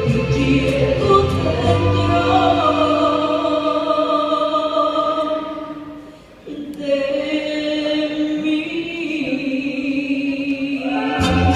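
A song sung by a group of voices in long held notes over an accompaniment. The bass and beat drop out early on, the sound thins to a brief dip about halfway, then the voices resume and the full band with bass and percussion comes back in near the end.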